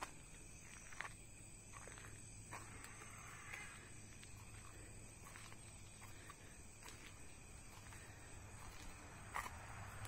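Near silence: faint outdoor ambience with a few soft, irregular footsteps on a dirt roadside, the loudest one near the end.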